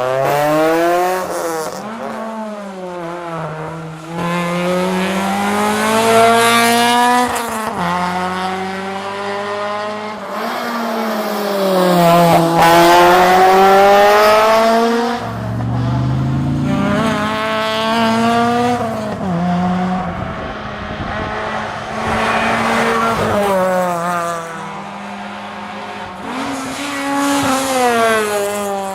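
Honda Integra Type R's four-cylinder VTEC engine driven hard, its pitch climbing high and then dropping back again and again through gear changes and lifts for corners.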